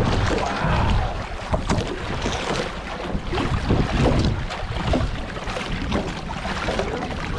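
Choppy seawater sloshing and splashing irregularly against the side of a boat, with wind buffeting the microphone.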